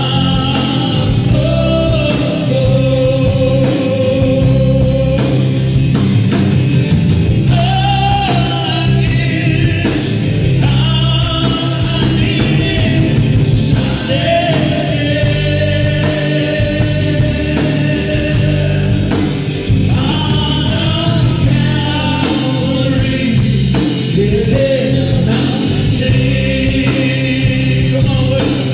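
Live gospel worship song: a man sings lead with long held notes, joined by backing singers and a band with electric guitars, all amplified through PA speakers.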